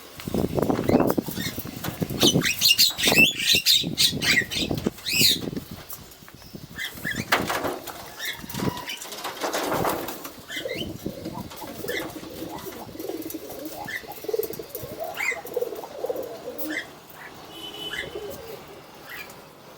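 Pigeons' wings flapping loudly through the first several seconds, followed by softer low cooing with scattered short chirps.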